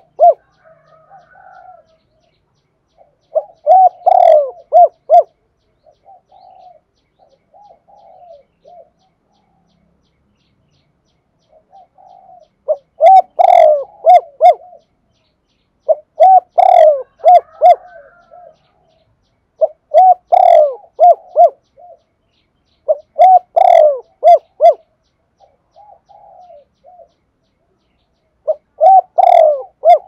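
Spotted dove cooing: a loud multi-note cooing phrase every three to four seconds, with a longer lull about a quarter of the way through that holds only a few fainter coos. It is the call of a decoy dove, used to provoke wild doves into answering.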